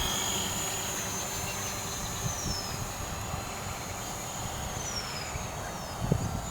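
DJI Mavic Pro quadcopter flying, its propellers giving a steady high whine that dips in pitch a few times, over low wind rumble on the microphone. A single thump comes about six seconds in.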